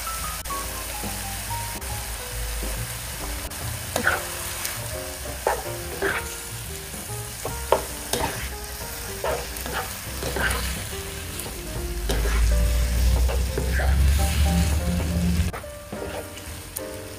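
Noodles, chicken and vegetables sizzling in a nonstick wok as they are stir-fried and tossed, with scattered sharp scrapes and knocks of the utensils against the pan. The sizzle swells louder for a few seconds, then drops suddenly near the end.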